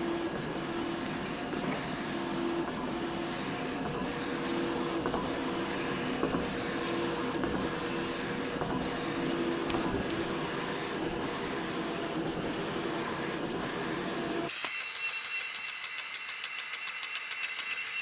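Large-format colour printer running, with a steady mechanical whir and a low hum that comes and goes in repeated short passes as it prints. About fourteen seconds in the sound cuts abruptly to a thinner, higher machine sound with a steady high tone.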